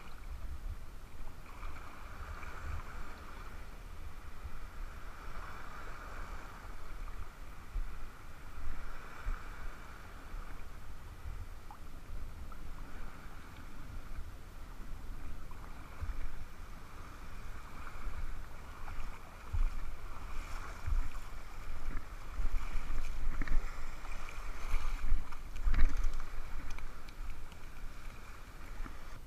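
Water sloshing around wading legs, with wind rumbling on the microphone. Louder splashing and scuffing in the last several seconds, as the fish is brought up onto the sand.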